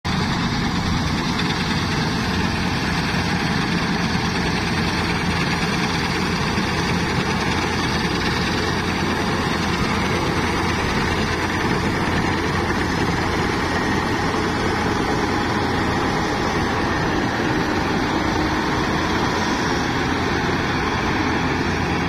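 New Holland 8070 combine harvester running while it cuts and threshes standing wheat: a loud, steady engine and machinery drone that holds level throughout.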